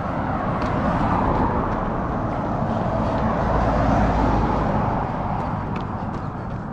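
A road vehicle passing, its tyre and engine noise swelling to a peak about four seconds in and then fading. Faint rhythmic footfalls of a runner sit underneath.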